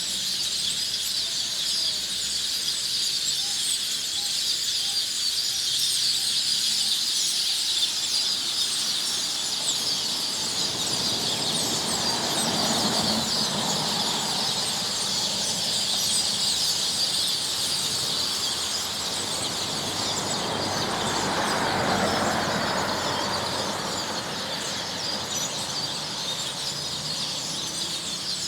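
Many birds calling at once: a dense, continuous high chatter of overlapping chirps. A lower, broader sound swells and fades twice, about twelve and twenty-two seconds in.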